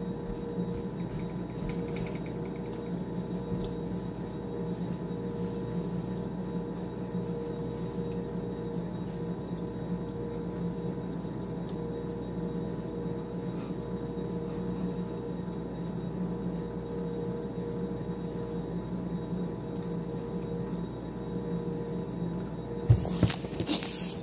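Steady electric hum holding a few even tones throughout. Near the end a couple of sharp knocks as the phone is picked up and handled.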